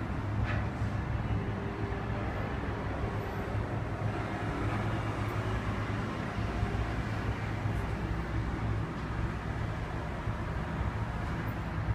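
Steady low hum over constant background noise, with no distinct events.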